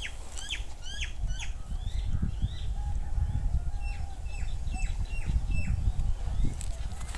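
A bird calling over and over, a quick series of short, sharp notes that sweep up and then drop in pitch, about two or three a second, over a steady low rumble.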